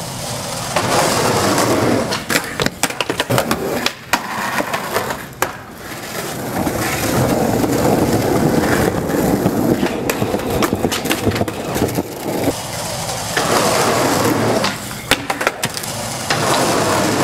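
Skateboard wheels rolling on concrete, with many sharp clacks of the board striking the ground.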